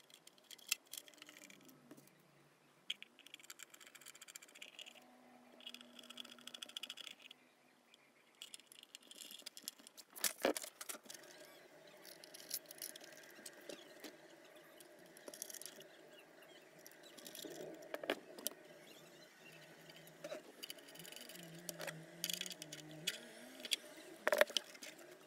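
Faint, scattered clicks, taps and scrapes as a screwdriver drives the screws back into an oscilloscope's metal chassis and the case is handled. There are a few sharper ticks near the middle and near the end.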